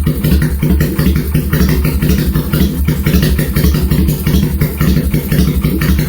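Kawasaki Vulcan 400 Classic V-twin running steadily at idle through an open trumpet muffler with its silencer removed, giving a loud, loping beat that the exhaust was modified to produce as a 'three-beat' rhythm.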